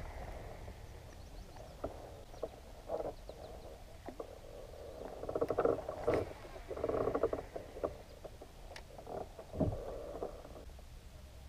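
Fishing reel being cranked in short bursts of about a second each, a fast rattling whir from the reel's gears. A few sharp clicks and knocks come between the bursts.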